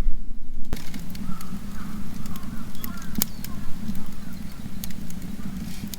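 Wood fire crackling in a garden stove, with scattered sharp pops over a low steady hum, and birds chirping briefly now and then.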